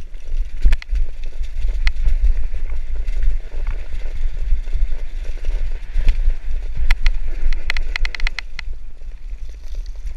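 Mountain bike rattling down a rough, rocky trail, with a steady low rumble of wind on the microphone. Sharp clicks and clatter from the bike over stones come throughout, with a quick run of them near the end.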